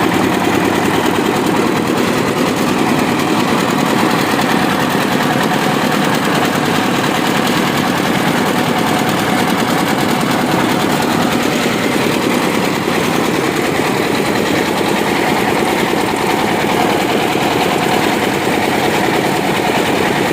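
Diesel engine of a mobile rice mill running steadily, a loud, even mechanical drone.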